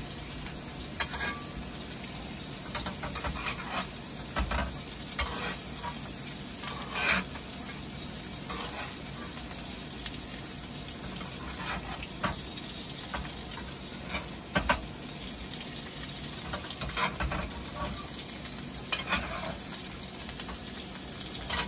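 Steak sizzling in butter in a Hexclad frying pan, a steady hiss throughout, while it is basted: irregular clicks and scrapes of a utensil against the pan come every second or few.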